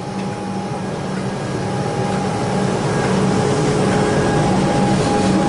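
Comeng electric suburban train moving slowly along the platform: a steady running hum with a few held tones from its motors, over the rumble of the wheels, growing slightly louder.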